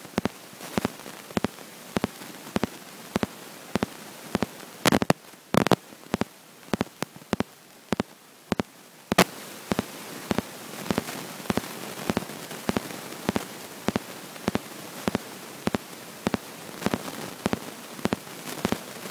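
Hiss and sharp clicks at a regular pace, about one and a half a second, heard through an iPhone microphone lying underwater. A few louder cracks stand out around the middle, and the hiss is fainter for a few seconds before the last of them.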